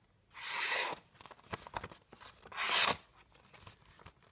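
Leatherman Juice S2's knife blade cutting through an old, brittle sheet of paper in two short strokes about two seconds apart.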